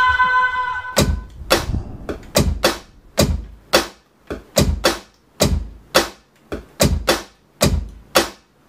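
A held electronic tone fades out about a second in; then a string of sharp percussive hits with low thuds, two to three a second in an uneven rhythm: the foot stomps and claps of a solo dance.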